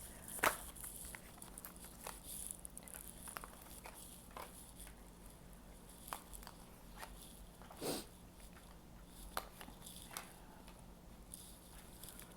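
Faint, scattered clicks and taps of tarot cards being handled and laid down, over a low steady hum.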